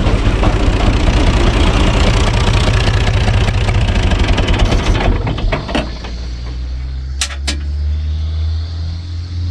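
U445 DT tractor's four-cylinder diesel running fast and driving a PTO cone log splitter with a fast rattle, which the men suspect comes from play in the drive. About five seconds in the revs are pulled back and the engine settles to a steady idle, with two sharp metallic clicks a couple of seconds later.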